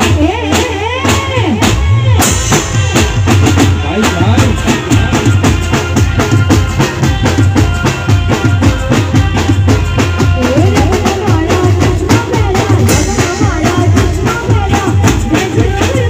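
A live garba band playing through a PA system: a fast, even beat on dhol and drum kit under keyboard, with a woman singing.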